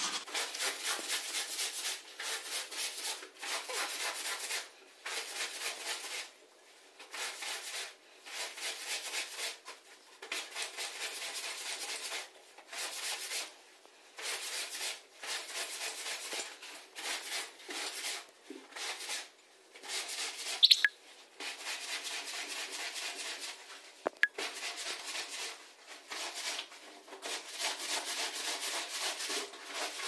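Scrubbing brush worked back and forth over a wet, soaped shirt spread on a tile floor, in repeated bouts of quick rasping strokes with short pauses between. A sharp click sounds about two-thirds of the way through, and another a few seconds later.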